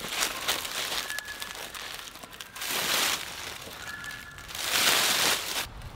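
A roll of woven wire fence being tilted and shifted over dry fallen leaves: a crinkling rustle of leaves and wire mesh, with two louder scraping swells, about three and five seconds in.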